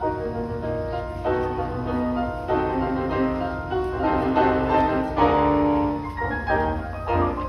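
Several Steinway grand pianos played together as an ensemble: quick runs of notes over full chords, swelling to a loud held chord about five seconds in.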